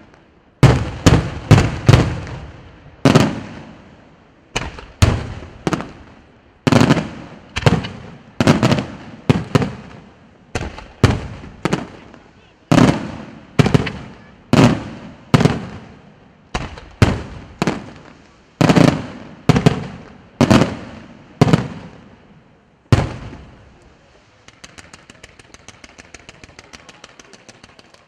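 Fireworks display: aerial shells bursting in a steady series of loud bangs, about one to two a second, each trailing off. Near the end the bangs stop and a fast run of faint ticks, roughly ten a second, takes over.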